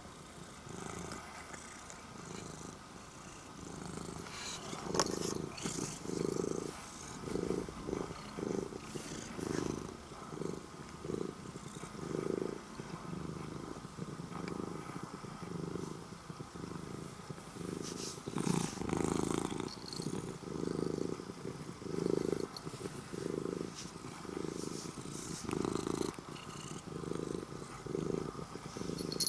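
Orange-and-white domestic cat purring close up, in steady low pulses about once a second as it breathes in and out, with a few brief rustles of bedding or fur.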